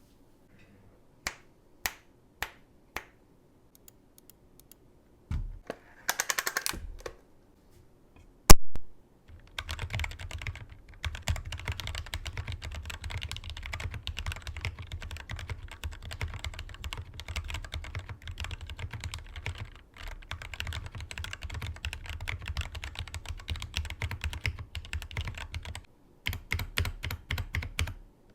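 Glorious GMMK TKL mechanical keyboard with lubed and filmed Gateron Yellow linear switches, being typed on. It starts with a few single keystrokes and a quick run of presses, then one sharp, loud clack about eight and a half seconds in, then continuous fast typing.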